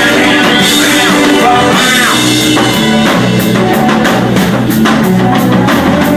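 A band playing a rock song: drum kit keeping a steady beat, with guitar and a singing voice.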